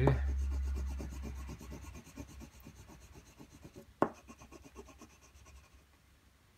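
Graphite stick scratching quickly back and forth on drawing paper, hatching in dark tone with about five or six strokes a second. The strokes grow fainter and stop about four seconds in, where there is one sharp click.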